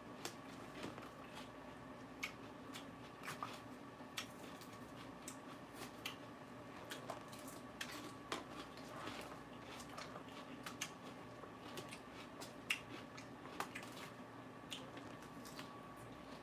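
A person chewing raw lettuce: irregular crisp crunches and wet mouth clicks, a few each second, over a faint steady electrical hum.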